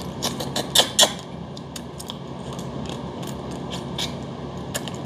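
Eating sounds from seasoned raw red crab being chewed and sucked from the shell: a scattered run of short wet clicks and smacks, two sharper ones about a second in, over a steady low hum.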